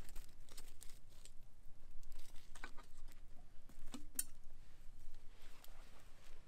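Long metal tongs clicking and scraping among the coals around a cast-iron skillet on a campfire, in a few scattered sharp clicks.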